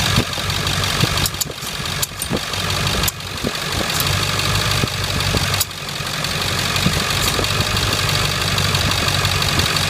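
Ford Excursion engine idling steadily with the A/C switched on, broken by a few sharp clicks and sudden dips in the sound as the high-pressure switch connector is wiggled. This is the sign of an intermittent contact at that connector, whose burnt terminal keeps the A/C compressor clutch from engaging.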